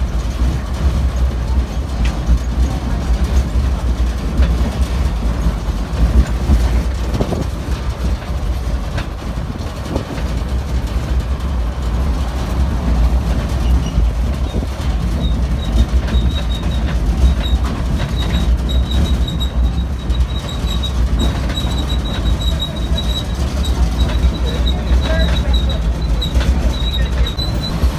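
Zocotren tourist road train running, heard from on board: a steady low rumble of the engine and wheels. Through the second half, a thin high squeak repeats.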